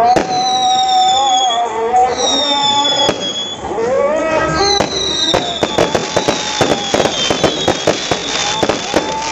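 Aerial fireworks going off: a series of whistles each falling in pitch over about a second, sharp bangs, and from about halfway through a dense, fast crackle of small pops.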